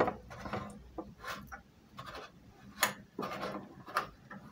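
Metal-on-metal handling of a meat grinder's front ring and cutting plate: a few sharp clicks with light rubbing and scraping in between.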